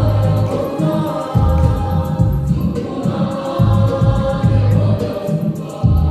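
Choir singing gospel-style music over a deep, pulsing bass line.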